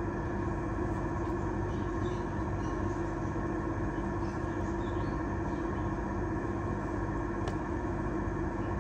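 A steady mechanical hum with several held tones, even in level throughout.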